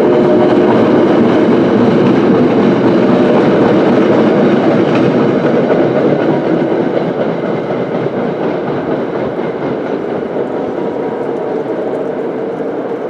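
NJ Transit commuter train, led by an ALP-45DP locomotive, rumbling and clattering on the rails as it moves away. The sound holds steady at first, then slowly fades over the second half.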